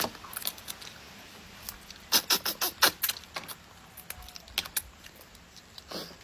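Crab shell cracking and crunching as a crab is eaten quickly: scattered sharp cracks, with a quick run of loud snaps about two seconds in.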